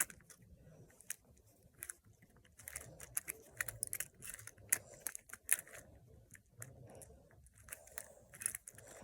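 A plastic Rubik's cube being twisted by hand: quick, irregular clicks and clacks as the layers are turned.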